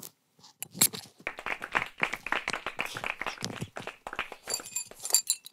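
Perfume atomizer spray bottle pumped over and over in quick succession, a rapid string of short hissing sprays. A few bright ringing clinks come near the end.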